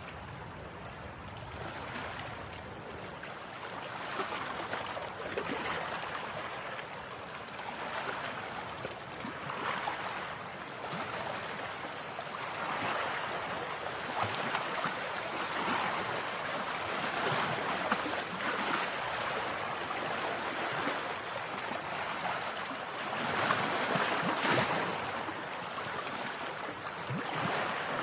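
Rushing water: a steady hiss that swells and eases every couple of seconds, louder in the second half.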